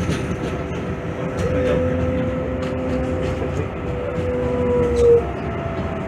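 New York City subway train running on elevated track, heard from inside the car: steady rumble with a steady whine that stops sharply about five seconds in, then a slightly higher whine takes over.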